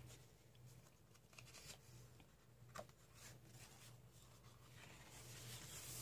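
Very faint paper rustling as a coloring book's pages are turned and a hand brushes across the paper, with a small tick near the middle. Otherwise near silence over a low steady hum.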